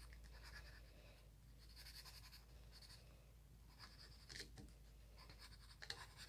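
Faint scratching of a wooden pencil's graphite tip on sketchbook paper, in short runs of strokes with brief pauses between them.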